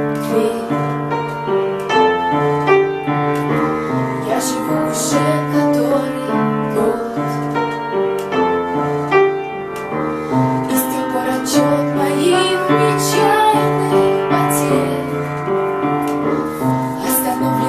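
A woman singing a pop ballad over piano and keyboard accompaniment, with light percussion ticking in the backing.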